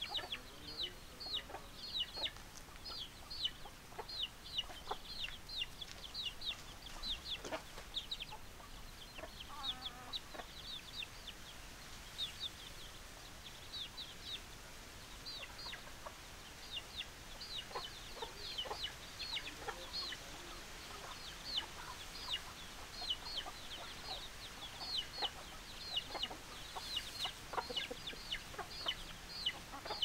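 Chicks peeping over and over in short, high, falling notes, with occasional lower clucks from the adult chickens.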